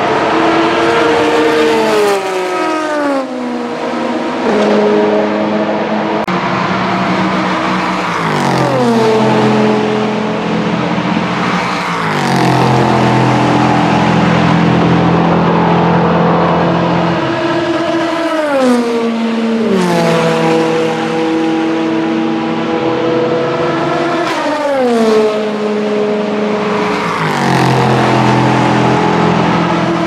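Racing car engines at high revs, one car after another going by, each engine's pitch falling as it passes, five or six times.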